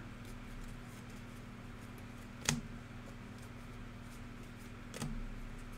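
Quiet room tone with a steady low electrical hum, broken by two short sharp clicks, one about halfway through and a fainter one near the end.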